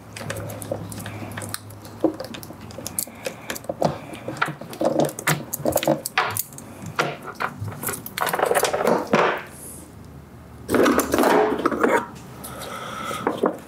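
Steel saw chain clinking and rattling as it is worked off the guide bar of a Husqvarna T535i XP battery chainsaw, with many small metal clicks and two longer rattling stretches partway through and near the end.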